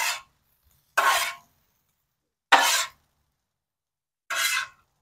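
Metal spatula scraping across a Blackstone's steel griddle top as fried rice is scooped up to serve: four short scrapes, each under half a second, spaced about one to two seconds apart.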